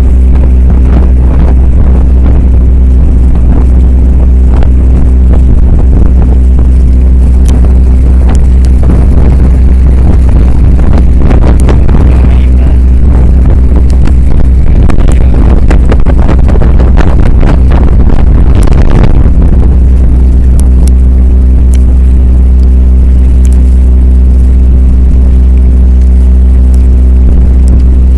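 Boat's engine running steadily with a deep, even hum, under a rushing noise from wind and water that grows louder in the middle.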